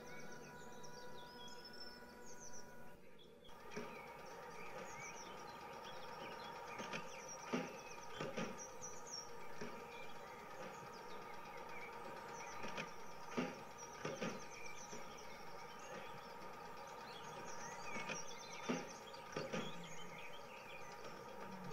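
Small birds chirping over a steady background ambience, with pairs of short knocks every few seconds. It is an added atmosphere soundtrack, not the model railway's own sound.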